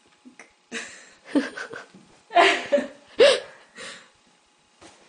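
A person laughing in several breathy bursts.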